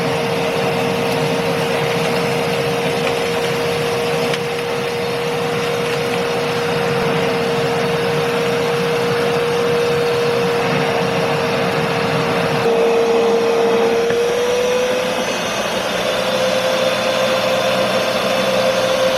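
Kärcher WD2 wet and dry vacuum cleaner's 1000 W motor running, with a steady whine over a rush of air. The pitch rises slightly about three-quarters of the way through.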